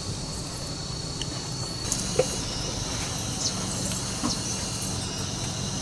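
A motor running with a steady low hum, a steady high buzz above it, and a few light clicks.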